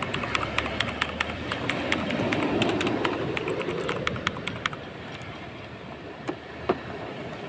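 Keys of an Outemo Blue-switch mechanical keyboard clicking in a quick run of presses, about four a second, for the first four to five seconds, then two lone clicks near the end. A steady rushing background noise runs under the clicks.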